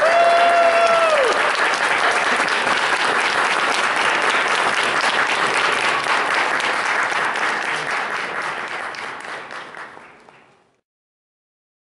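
Audience applauding at the end of a children's skit, with one voice cheering on a held note at the start. The clapping dies away and stops shortly before the end.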